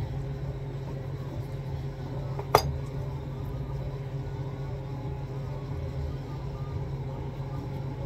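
A steady low hum with one sharp click or clink about two and a half seconds in.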